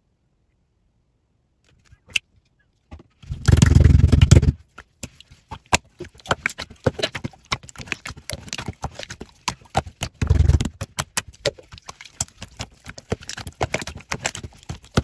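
Slime being squished and poked by hand, giving rapid wet crackles and clicks, with two heavier muffled squashes about three and a half and ten seconds in.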